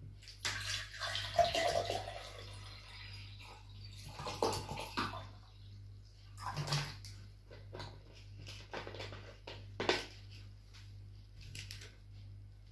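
Close-up eating sounds: wet chewing and mouth noises with scattered clicks and food-handling sounds, over a low steady hum.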